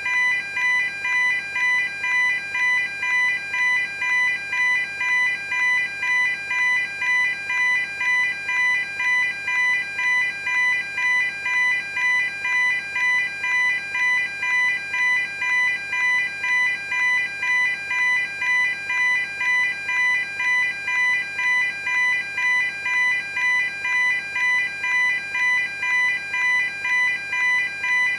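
Level crossing warning alarm ringing: a steady, evenly repeating electronic ding of fixed pitch, a little over once a second, unchanging throughout.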